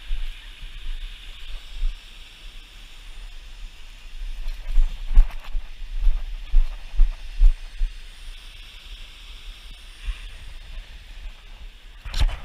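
Footsteps and camera-handling bumps from a GoPro carried along a bush track, heard as irregular low thuds that come fastest in the middle, over a steady high hiss.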